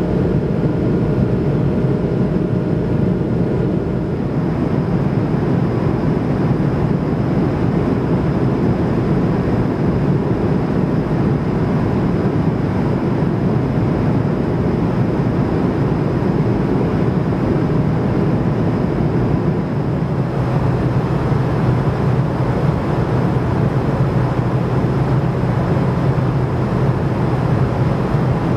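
Steady cabin noise of an Airbus A220 in cruise: the rush of air past the fuselage and the drone of its Pratt & Whitney PW1500G geared turbofan engines, with a faint steady whine above it. A low hum in the noise grows slightly stronger about two-thirds of the way through.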